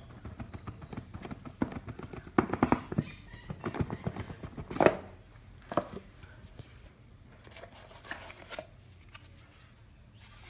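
Cardboard packaging being handled as it is opened: the box sliding from its sleeve and the lid lifting off, with a quick run of scrapes and knocks in the first half, the loudest a sharp knock about five seconds in, then quieter handling.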